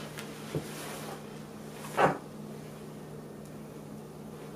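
Quiet room tone with a steady low hum, a faint thump about half a second in and one short knock about two seconds in.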